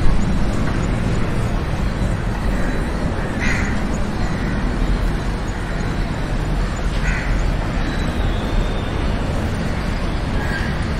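Steady low rumbling outdoor noise, with three short bird calls a few seconds apart.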